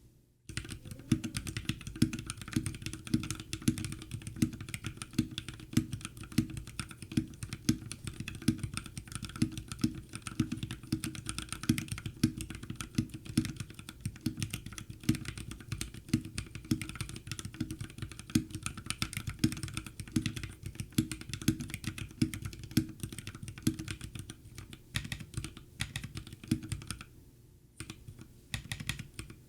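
Fast, continuous typing on a custom Drop Alt High-Profile mechanical keyboard with Krytox 205g0-lubed Akko CS Jelly Black linear switches. The keystrokes have a deep, low-heavy sound, with a brief pause about 27 seconds in.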